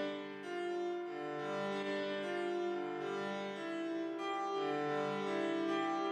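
Sampled grand piano from the FORT3 virtual instrument playing a passage of overlapping sustained notes and chords.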